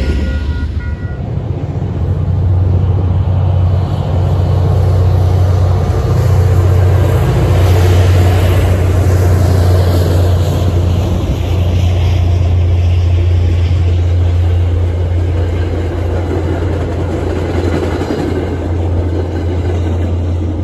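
MBTA commuter rail diesel locomotive running with a steady low engine drone as it slowly moves a set of passenger coaches past. A grade-crossing bell rings at the very start and stops about a second in.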